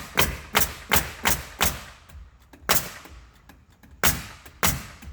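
Nail gun firing repeatedly into a wall: a quick run of five sharp shots, about three a second, then three more spaced out singly.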